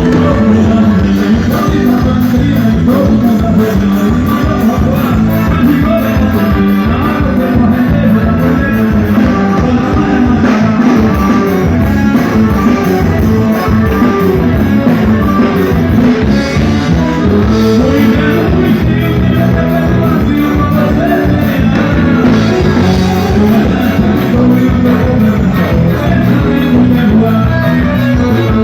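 Band playing a São João forró song with drum kit and guitar at a steady beat.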